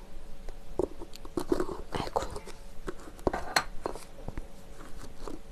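Scattered small clicks and short scrapes of a spoon scooping capsaicin sauce into a bowl of seasoning sauce, picked up close to the microphone.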